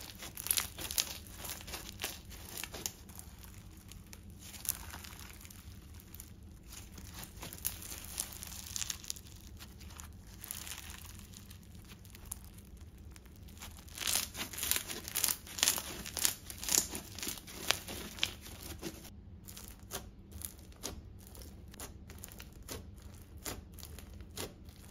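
Crunchy bingsu slime, a clear glue base packed with small plastic bingsu beads, being squeezed, kneaded and stretched by hand. It gives dense, uneven crackling crunches, busiest a little past the middle.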